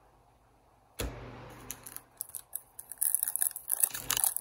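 One sharp knock about a second in, then scattered clicks. Near the end comes the dense crinkling of a foil hockey-card pack being handled and torn open.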